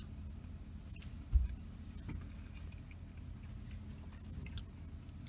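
Close-up chewing and small mouth sounds of someone eating, over a steady low hum. A single low thump about a second and a half in is the loudest sound.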